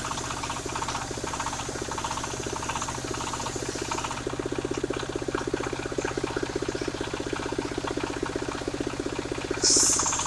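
Engine of a mobile circular sawmill running steadily with a rapid, even pulse. Near the end a short, louder burst of higher-pitched noise breaks in.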